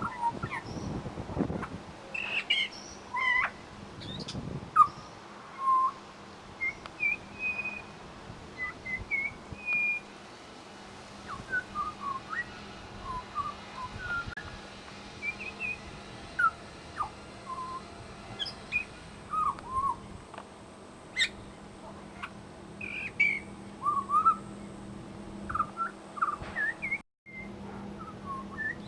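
Pied butcherbird singing a varied run of short, clear whistled notes and quick glides, in a song that mixes in mimicked calls of other birds.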